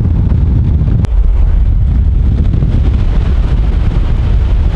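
Wind buffeting the microphone held out the open window of a moving pickup truck, a loud steady low rumble mixed with road noise, with one brief break about a second in.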